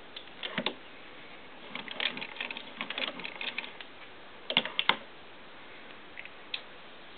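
Irregular clicks and light clatter from a Singer 15-91 sewing machine being handled: short runs of small mechanical clicks, the loudest pair about five seconds in. It is not running.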